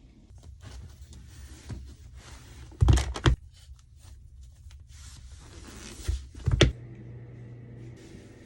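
Two clusters of loud knocks or thumps, one about three seconds in and another about six seconds in, over a steady background hiss.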